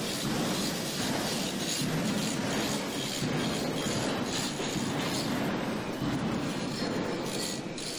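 Angle grinder grinding on the steel frame of a hooklift truck body, a continuous harsh, uneven grinding noise.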